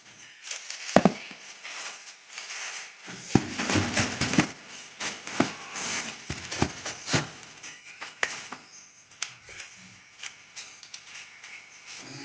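Irregular rustling, crinkling and tapping from handling shoe packaging, with a sharp click about a second in.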